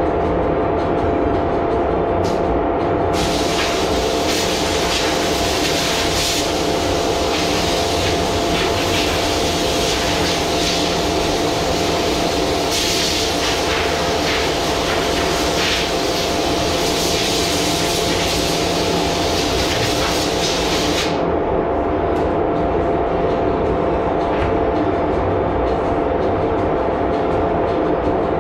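Spray gun spraying conversion varnish: a loud hiss that starts about three seconds in and stops about seven seconds before the end. Under it runs a steady machine drone with one constant tone.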